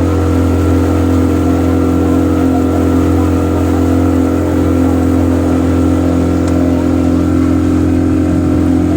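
Motorboat engine running at a steady speed, an even drone that holds its pitch and loudness.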